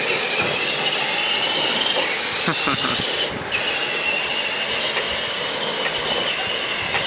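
Electric radio-controlled monster truck's motor and gearboxes whining at a high, wavering pitch as it drives, cutting out briefly about three seconds in.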